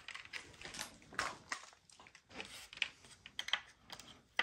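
Light, irregular clicks and scrapes of a hand screwdriver working small screws out of the plastic LED boards inside a Bluetooth speaker.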